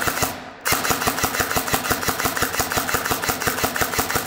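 Phylax MK18 S-AEG electric airsoft rifle firing full-auto: a rapid, even stream of shots from the gearbox cycling. A burst tails off at the start, and after a brief pause a long burst starts about half a second in.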